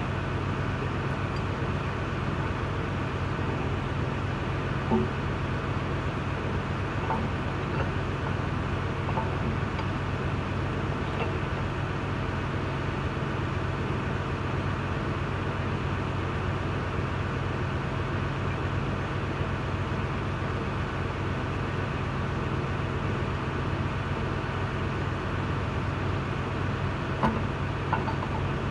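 A steady low machine hum throughout, with a few faint, light metal clicks and taps as parts are fitted by hand into a tractor powershift transmission case; the clearest taps come about five seconds in and near the end.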